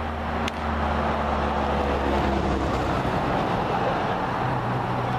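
A vehicle engine running steadily at idle, with one sharp click about half a second in.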